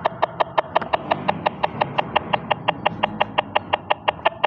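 A steady, fast clicking beat, about six evenly spaced clicks a second, over a low hum, as in a backing track.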